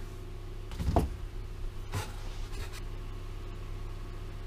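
Hands handling things on a workbench: a soft knock about a second in and a sharp click a second later, over a steady low electrical hum.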